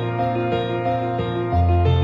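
Calm background music of held notes over a low bass line; the bass steps down to a lower note about a second and a half in.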